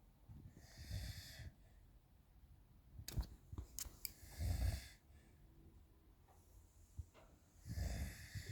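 Someone snoring: three long, rasping snores about three and a half seconds apart. A few sharp taps fall just before the second snore.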